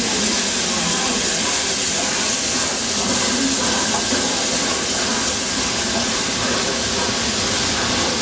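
Peppercorn A1 Pacific steam locomotive 60163 Tornado at a standstill, with steam hissing steadily from the engine.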